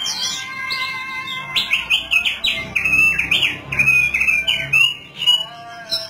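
Caged thick-billed white-eye singing a rapid, warbling run of short chirps and downward-slurred notes, busiest in the middle.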